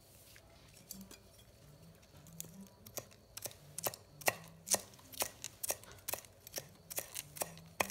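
A pestle pounding food in a mortar, in sharp, even knocks about two a second that start a little over two seconds in.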